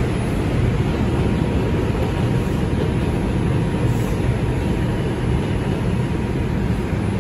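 Inside an R142 subway car running at speed: a steady, even rumble of wheels on rail and the car's running gear.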